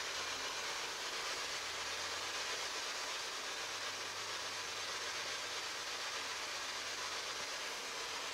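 Steady static hiss from a PSB-7 spirit box left running, with a faint low hum underneath.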